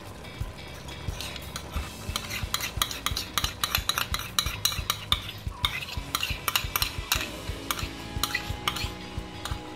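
Udon noodle broth boiling in a non-stick pan, with many irregular pops and crackles starting about a second in.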